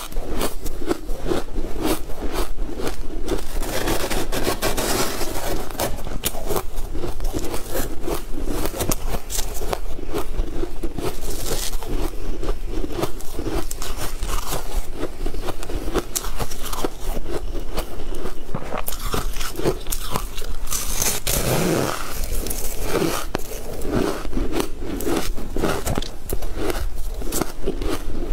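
Close-miked eating: continuous crunching and chewing of a crystal-crusted purple confection, a dense run of crackly crunches with no pauses.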